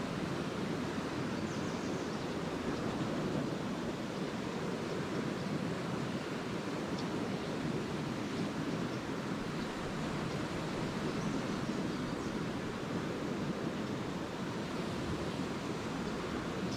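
Small Lake Erie waves washing onto the shore in a steady, even wash.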